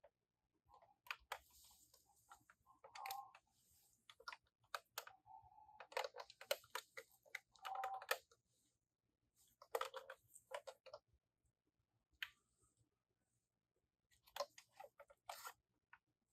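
Faint bursts of light clicking and clattering from small toy minicars being handled and knocking against hard surfaces, in clusters of a second or two with short gaps between.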